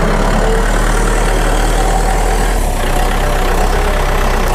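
Kubota MK5000 tractor's diesel engine idling steadily.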